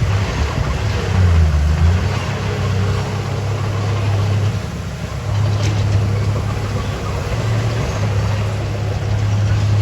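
Komatsu D31A bulldozer's diesel engine running under load with a steady low drone that eases off briefly about five seconds in, then picks up again.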